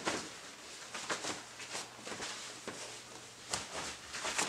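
Soft rustling and scattered light taps as a pair of Nike Dunk sneakers are pulled on and worked into place by hand.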